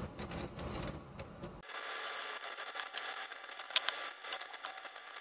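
Small worm-drive hose clamp being tightened with a driver onto aluminium tubing: rubbing with light ticking. From about a second and a half in, a galvanised sheet-metal shroud and the tubing are handled, giving many small clicks and a few sharp metal clinks.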